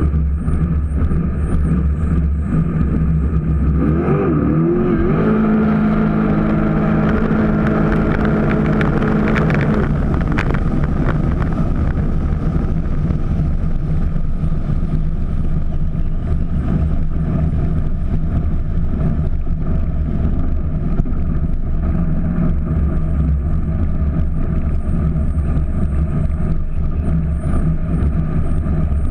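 Jet boat's big-cubic-inch aluminum engine, topped with a blower, running under way; about four seconds in it revs up and its pitch climbs for several seconds, then it runs on steadily over a constant rush of wind and water.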